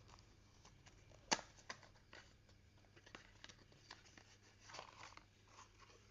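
Faint handling noises: scattered light clicks and rustles, the sharpest click about a second in and a brief rustle near the end.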